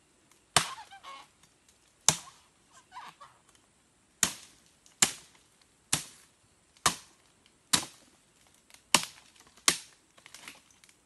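A machete chopping into the fibrous base of a palm clump: about nine sharp blows, unevenly spaced roughly a second apart, with a few lighter knocks between them.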